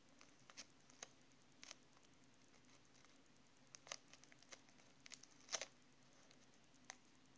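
Faint, scattered ticks and crinkles of fingers handling a tiny folded paper package wrapped in sticky tape, over near-silent room tone with a faint steady hum. The loudest tick comes about five and a half seconds in.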